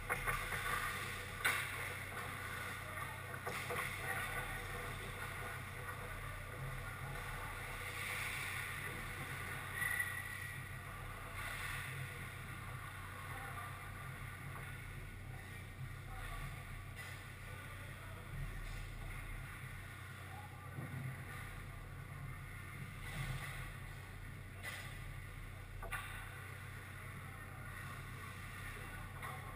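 Ice hockey rink ambience: a steady low hum, with scattered faint clacks of sticks, puck and skates on the ice, a little louder in the first few seconds.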